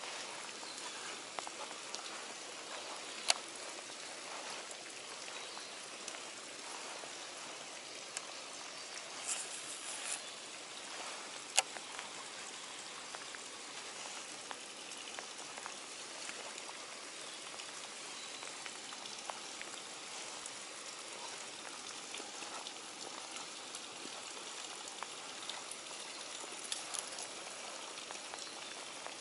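Steady rain falling, with a few sharp clicks scattered through it, the loudest about three seconds and eleven and a half seconds in.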